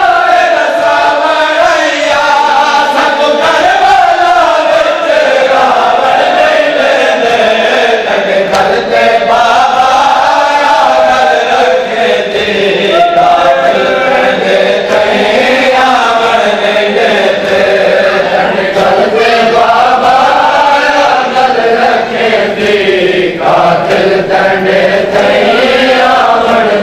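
A noha, a Shia lament, sung by a man through a microphone with a crowd of men chanting along in a slow, wavering melody. Chest-beating (matam) slaps run beneath the singing.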